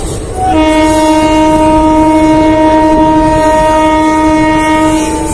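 Indian Railways train horn sounding one long, steady blast of about five seconds. Under it is the running rumble of the moving train, heard from an open coach doorway.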